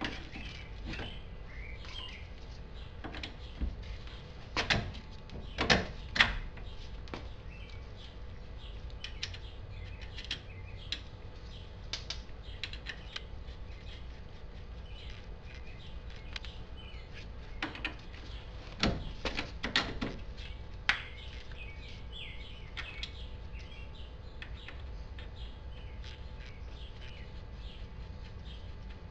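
Sharp metal clicks and clinks of hand tools working on a car's front steering knuckle and hub, in two bunches, one about five seconds in and one near the middle. Birds chirp faintly in the background throughout.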